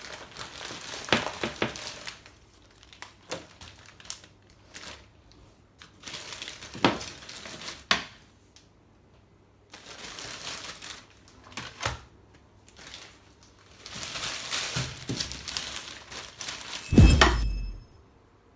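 Kitchen handling noises: bursts of rustling and crinkling with scattered knocks, and a heavy thump about 17 seconds in.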